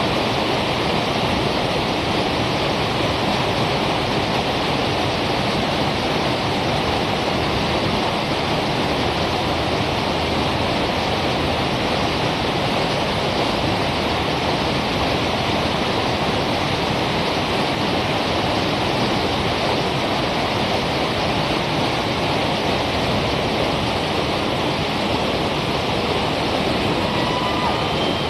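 River whitewater rushing steadily through a big rapid, a continuous, even noise of crashing, churning water.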